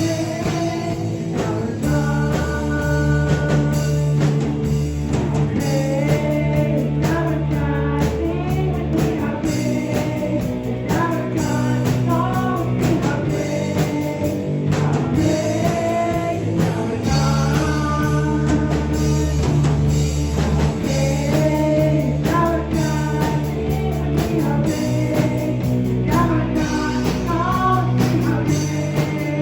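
A song with a singing voice over a band accompaniment, including sustained bass notes.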